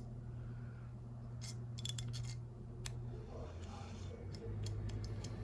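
Scattered light metallic clicks and taps of parts and screws being handled as the BMW Z4 E85 roof pump motor housing is screwed back together by hand, over a low steady hum.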